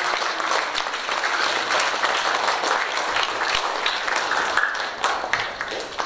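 A congregation applauding in a church hall, the clapping dying down near the end.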